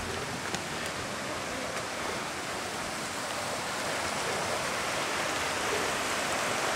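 A rushing creek: a steady wash of water noise, growing gradually louder.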